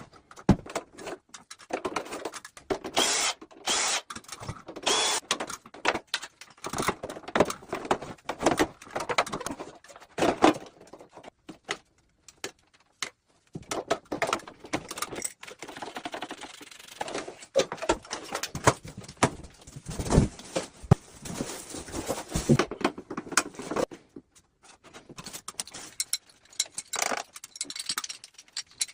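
Irregular metallic clinks, knocks and rattles of hands and tools working on an air conditioner's indoor unit, in short bursts broken by brief silences.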